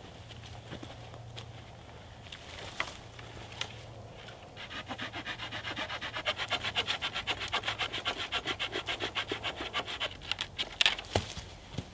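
Small folding handsaw cutting through a green sapling pole, a steady run of quick, even back-and-forth strokes, preceded by footsteps in dry leaf litter. A few sharp knocks near the end are the loudest sounds.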